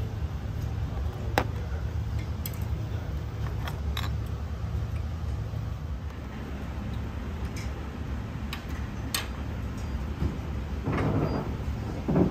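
Indoor restaurant noise: a steady low rumble with scattered light clicks and clinks, and a short noisy scrape just before the end.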